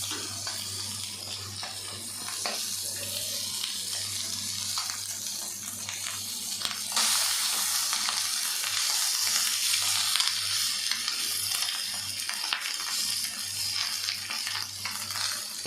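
Cooked basmati rice being stirred and fried in an oiled kadai: a steady sizzle with the spatula scraping and tapping against the pan, the sizzle growing louder about halfway through.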